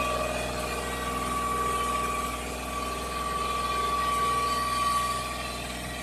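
Tractor engine running steadily, with a high whine over it that fades out about five seconds in.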